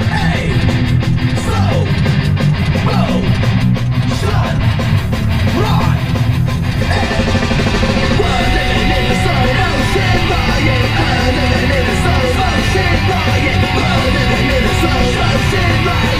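Loud rock music with electric guitar and a singing voice, growing fuller about seven seconds in.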